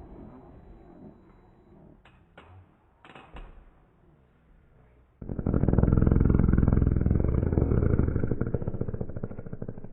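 A fart sound slowed to quarter speed: a loud, low, fluttering buzz that starts suddenly about five seconds in and slowly fades toward the end. A few faint clicks come before it.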